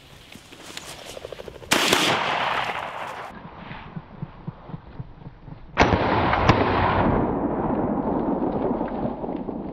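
Shotgun fired at a flushed gamebird: a loud blast about two seconds in and another around six seconds in, with a sharp crack just after it. Each leaves a long fading tail.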